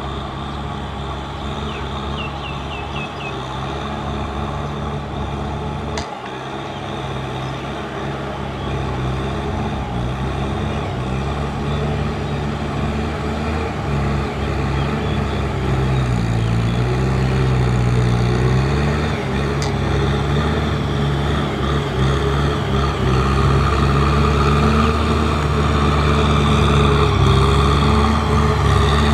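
Kubota M6040SU tractor's four-cylinder diesel engine running steadily as its front blade pushes mud through a flooded rice field, growing louder as it comes closer. The engine note dips briefly a little past halfway, then recovers.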